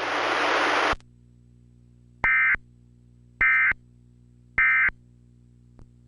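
A loud static hiss cuts off about a second in. It is followed by three short, identical squawks of Emergency Alert System end-of-message data tones, evenly spaced a little over a second apart, which signal the end of the alert broadcast.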